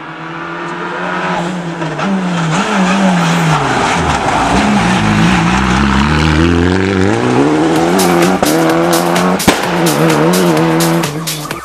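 A Fiat 500 rally car's engine: its note drops as the car slows into a hairpin, then climbs again in steps as it accelerates away. Electronic music with a steady beat fades in over the last few seconds.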